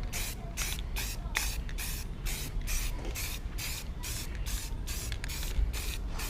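Aerosol can of white primer spraying in short, rapid bursts, about three a second.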